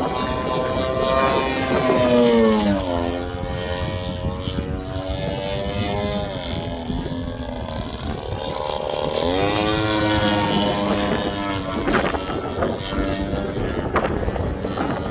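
GP 178cc gas engine of a giant-scale Extreme Flight Slick 580 aerobatic model airplane, swinging a 30x13 Falcon propeller, running in flight. Its note drops sharply as it passes about two seconds in, then rises around nine seconds and falls again as it sweeps past a second time. Wind on the microphone underneath.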